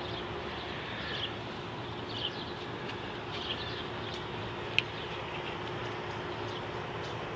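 Outdoor ambience: a steady background rumble with faint, scattered short high chirps and a single sharp click about five seconds in.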